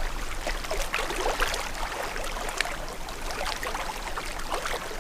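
Water splashing and lapping around a small boat: irregular small splashes over a steady hiss.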